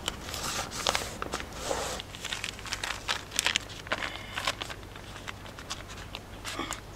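Irregular rustling, crinkling and scraping from a vinyl decal and its paper backing being handled and smoothed onto a boat hull, with scattered small clicks, busiest in the first few seconds and thinning out later.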